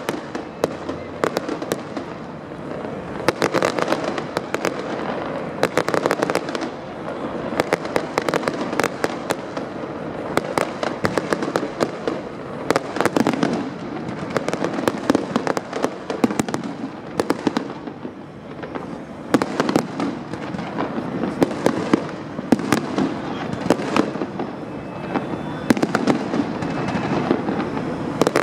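Aerial fireworks display: shells bursting overhead in a continuous barrage of rapid bangs and crackling, with no break.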